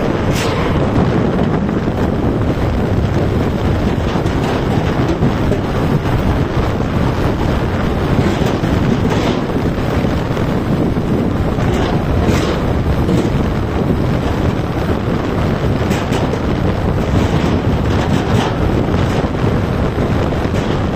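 Strong wind buffeting the microphone while it moves along at speed, a loud steady rush with brief sharper gusts every few seconds.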